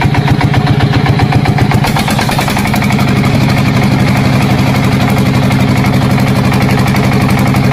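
Tractor-style engine running with a fast, even chugging beat, uneven for the first two seconds or so and then settling into a steady idle.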